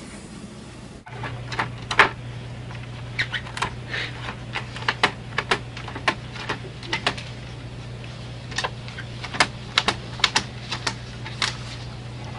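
HP all-in-one printer running, starting about a second in: a steady low hum with irregular sharp clicks and taps from its printing mechanism.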